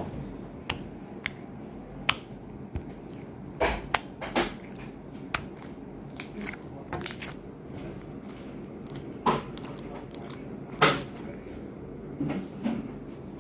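Slime being pressed and squeezed by hand, giving irregular sticky clicks, pops and short crackling squishes over a low steady hiss.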